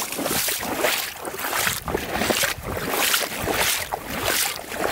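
Footsteps of a person walking across river ice through wet, slushy snow, about two steps a second.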